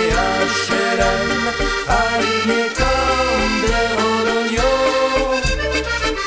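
Background instrumental music: an accordion melody over a bass line and a steady beat.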